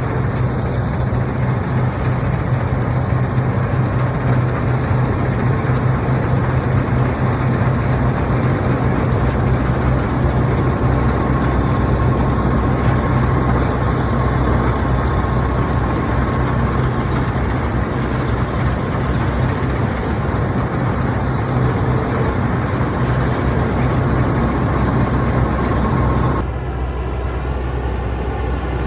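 Fortschritt E514 combine harvester's diesel engine and machinery running steadily while cutting, with a strong low hum. A little over two seconds before the end, the sound changes abruptly.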